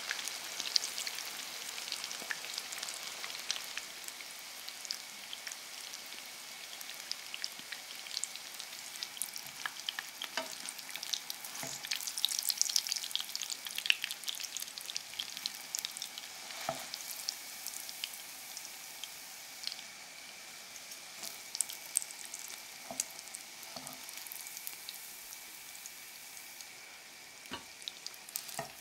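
Breaded zucchini slices shallow-frying in vegetable oil in a nonstick pan: a steady sizzle with crackling spatters that swells for a couple of seconds about halfway through, and a few light knocks of forks against the pan as the slices are turned and lifted.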